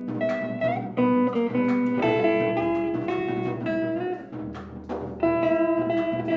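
Acoustic guitar playing improvised music, a run of plucked notes at a few notes a second.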